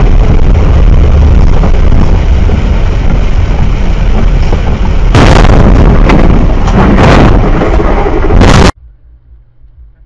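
Loud, overloaded roar of vehicle noise on a dashcam microphone, with three harsher bursts in the second half; it cuts off suddenly near the end, leaving a faint low hum.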